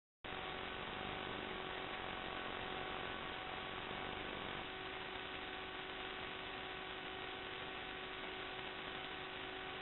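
Steady electrical hiss with a constant hum running through it, switching on abruptly a moment in.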